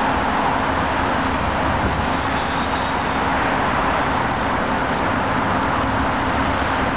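Steady wash of road traffic noise from passing cars, an even rumble and hiss with no single vehicle standing out.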